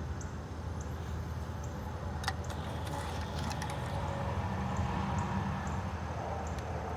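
A few light clicks from a plastic pipe repair coupling being handled and slid into place, over a steady low rumble.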